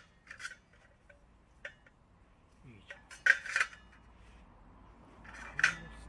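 Stainless-steel wood stove parts scraping and clinking as they are handled: a few short metallic scrapes and clicks, the loudest cluster about three seconds in and another near the end.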